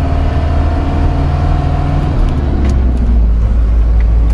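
Mercedes-Benz 711D van's diesel engine running under way, heard from inside the cab. About two seconds in the engine note shifts to a deeper rumble.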